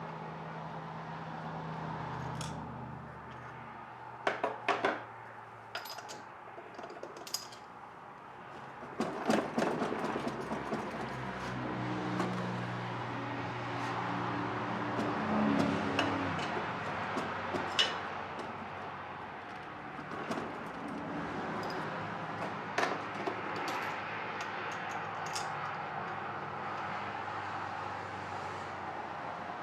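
Hand tools clinking and knocking on metal: scattered sharp metallic clicks and taps, some in quick clusters, over a steady background.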